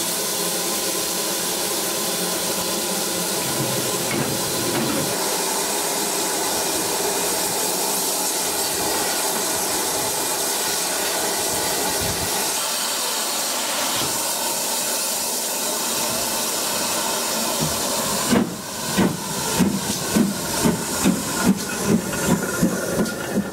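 GWR 'Small Prairie' 2-6-2 tank locomotive 5521 standing in steam, giving a steady loud hiss of escaping steam. About 18 seconds in it starts to move off, its exhaust beats coming about two a second and quickening slightly.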